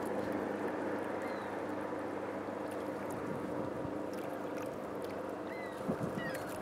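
River water gurgling and lapping along the shore under a steady low hum, with a few short, high, falling bird chirps.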